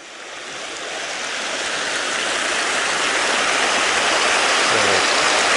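Shallow river rushing steadily over rocks and riffles, fading in over the first couple of seconds.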